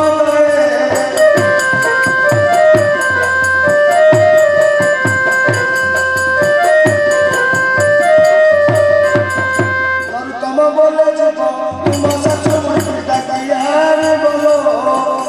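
Live folk dance music: a sustained melody over a steady drum beat with small cymbals ticking in time. The drumming and cymbals stop for about two seconds around ten seconds in, then start again.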